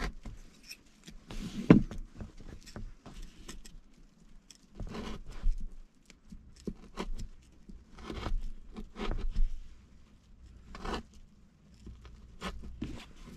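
Hand work at a car's center console: irregular scraping and rustling as its covering is cut away with a small blade, mixed with small clicks and knocks of plastic parts, with a sharp knock about two seconds in.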